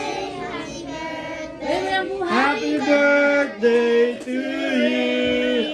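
A group of children and women singing a birthday song together, the voices moving in held notes, with long sustained notes in the second half.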